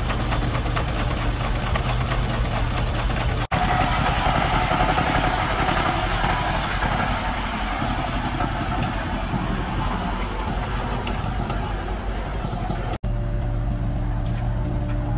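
Công nông farm trucks' diesel engines running with a steady low throb. The sound breaks off briefly twice. In the middle stretch it is louder and rougher, as a truck loaded with sand pulls away.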